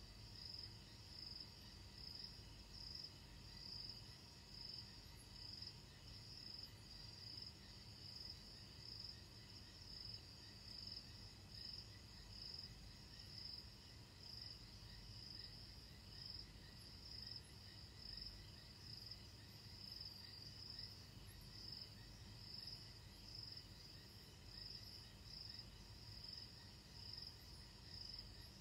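Crickets chirping at night in a steady, even pulsing rhythm, faint, over a low steady hum.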